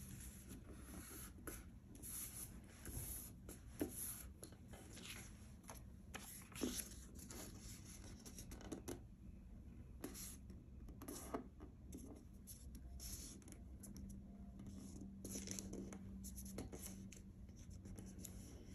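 Paper being folded and creased by hand: a patterned paper strip pressed over the edge of cardstock, with faint, irregular rustles and scratchy strokes as fingers slide along the fold.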